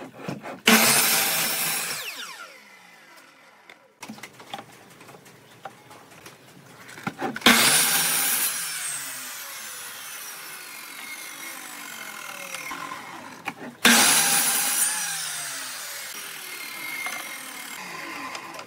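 Sliding compound miter saw cutting short wood blocks three times: each cut starts with a sudden loud rasp of the blade through the wood, then the motor's whine falls in pitch as the blade spins down.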